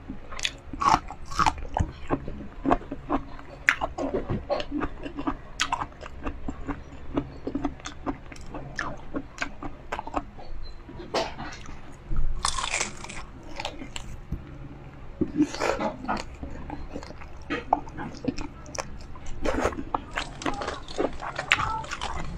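Close-miked biting, crunching and chewing as crispy fried pork and a long green chili are eaten by hand. A louder crackling crunch comes about halfway through, with wet mouth clicks between bites.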